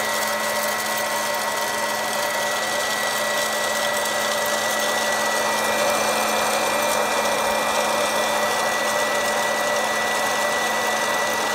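West Bend Air Crazy hot-air popcorn popper running, its fan blowing heated air through the kernels in a steady, loud whir with a thin high whine on top. The kernels are still heating and none are popping yet.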